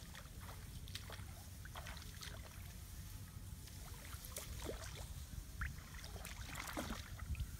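Water sloshing and splashing as a person wades into shallow muddy water, with scattered rustling of grass and straw, getting louder near the end.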